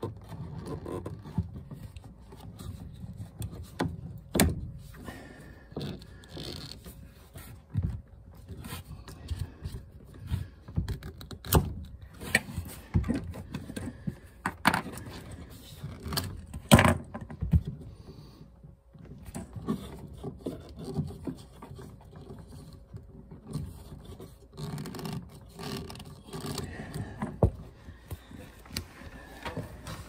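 Handling noise from fitting plastic water pipe into a small water pump on a wooden floor: scattered sharp clicks and knocks with scraping, the loudest knocks about four, eleven, fourteen and seventeen seconds in.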